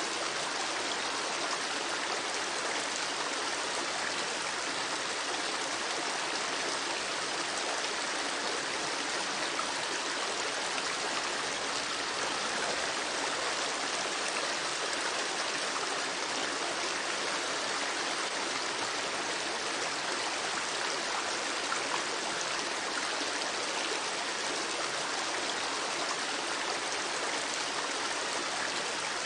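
Running water flowing steadily: an even, unchanging hiss that is light in the low end, with no separate drips or breaks.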